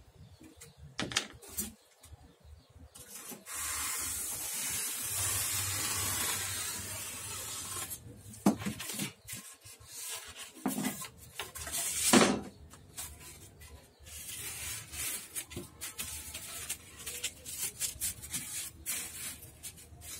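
Utility knife drawn along a steel ruler through a sheet of styrofoam: a long scratchy rasp lasting about five seconds. Then a few sharp knocks, the loudest about twelve seconds in, followed by light scraping and rustling as the cut foam pieces are handled and fitted against wooden boards.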